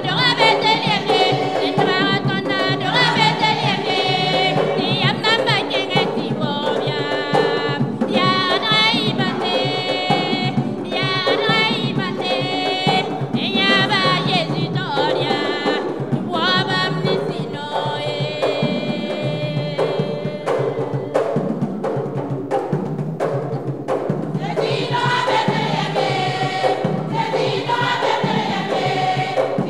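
Women's choir singing, with lead voices on microphones, over a steady percussion beat.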